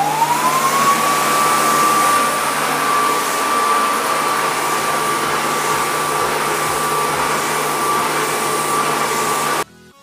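Ramtons cyclonic canister vacuum cleaner running: its motor whine rises in pitch as it spins up during the first second, then holds steady over a loud rush of suction. The sound cuts off suddenly near the end.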